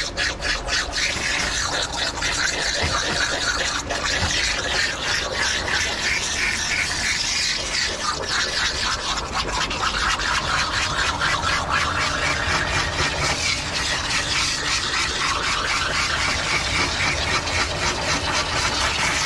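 Water spraying steadily from a handheld hose nozzle into a wet dog's thick coat and onto the tub's floor grate, a continuous hiss.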